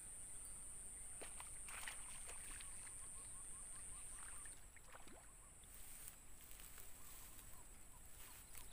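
Faint splashing of a hooked snakehead (haruan) fighting at the water's surface as it is reeled in, with a few sharp ticks over a steady high-pitched hiss.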